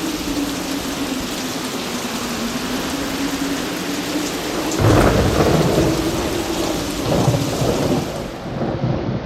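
Steady heavy rain during a thunderstorm, then about five seconds in a sudden nearby thunderclap breaks into loud rolling thunder, with a further crack a couple of seconds later.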